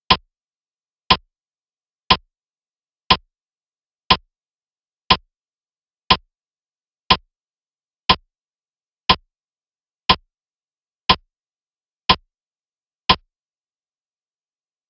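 Clock-tick sound effect counting off the time to answer a quiz question: fourteen short, sharp ticks, one a second.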